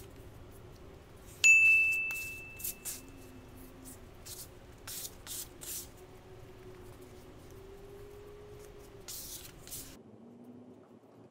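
Plastic bench scraper scraping and gathering crumbly shortbread dough on a stone countertop: a series of short, dry scrapes. About a second and a half in, a sharp clink rings out as a single high tone that fades over about two seconds.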